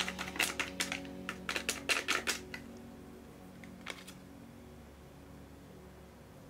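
Metal teaspoon clinking and tapping against a glass mixing bowl in a quick run of light clicks as baking powder is knocked off it, then one last click about four seconds in.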